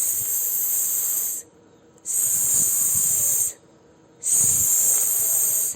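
A woman's voice making a long hissing "sss", the phonics sound of the letter S, like a snake, three times with short pauses between.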